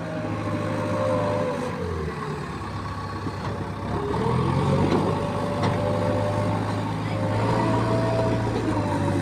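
Heavy diesel machinery engine running under varying load, its pitch dropping about two seconds in and rising again about four seconds in.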